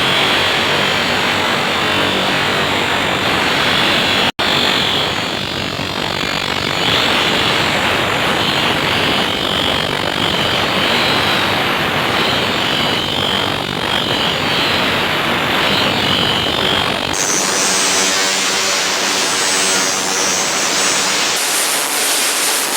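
A power tool running steadily, with a wavering high whine over a dense rushing noise. It breaks off for an instant about four seconds in and changes in tone about seventeen seconds in.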